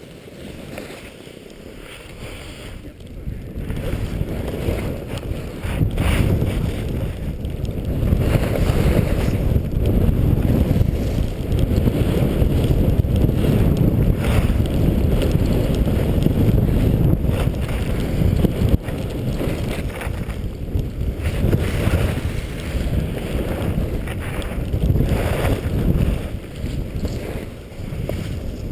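Rushing wind buffeting the microphone of a skier skiing downhill, a gusting low rumble mixed with the hiss of skis sliding over snow. It grows louder a few seconds in as the skier picks up speed.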